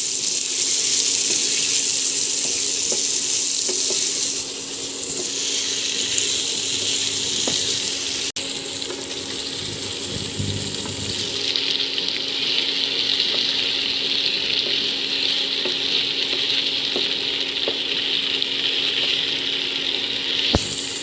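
Chicken and vegetables sizzling as they fry in a pan: a steady hiss that shifts in tone a few times, with a steady low hum underneath.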